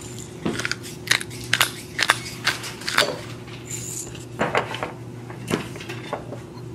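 Sharp, irregular clicks and knocks of bottles and a black pepper grinder handled on a stone countertop, with crunching of the grinder as peppercorns are ground into the dipping oil.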